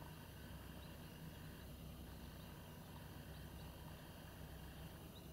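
Faint, steady low drone of a distant tug's engine towing a barge, with a few faint short high chirps over it.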